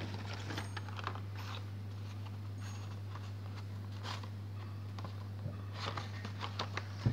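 Faint, scattered rustling and light taps of Hot Wheels blister-card packaging in a cardboard case being handled, over a steady low hum.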